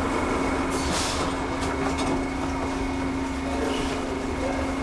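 Steady hum of a Dubai Metro train carriage, with a constant low tone and a fainter high whine over a low rumble.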